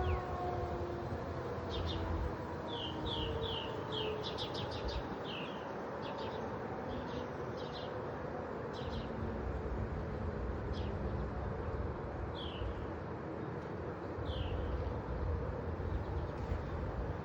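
Birds chirping in short scattered calls over a steady low background noise, while an outdoor warning siren winds down, its falling tones fading out over the first few seconds.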